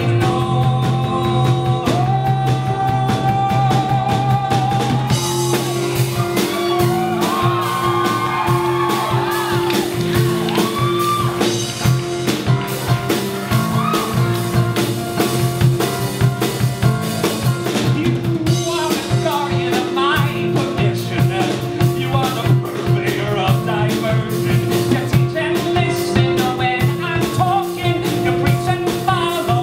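A live band of grand piano, acoustic guitar, bass guitar, drum kit and cello playing a pop-rock song, with a male voice singing long held, wavering notes over it.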